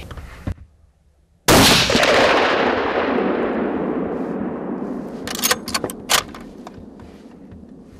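A single hunting rifle shot about a second and a half in, coming suddenly out of a brief hush, with a long echo that fades away over several seconds. A few sharp clicks follow a few seconds later.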